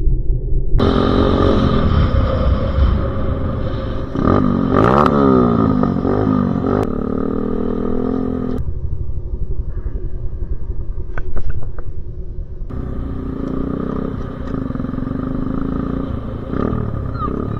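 Dirt bike engine running, revved up and down sharply several times about four to six seconds in; the engine sound shifts abruptly a few times.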